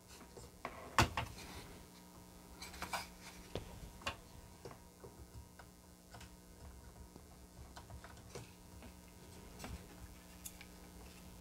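Scattered small plastic clicks and taps from handling an in-circuit chip tester, its clip pressed down over a chip and its buttons pushed; the loudest click comes about a second in.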